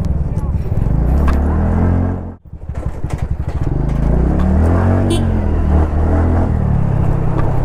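TVS Ntorq 125 scooter's single-cylinder engine running under way, with wind on the microphone. About two and a half seconds in, the sound drops sharply for a moment, then the engine's pulses pick up and its pitch rises and later falls with the throttle.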